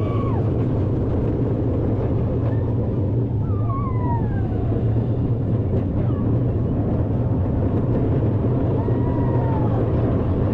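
Small children's roller coaster running along its track with a steady rumble. A few short, high, whining glides in pitch come over it: one falling about four seconds in, and one near the end.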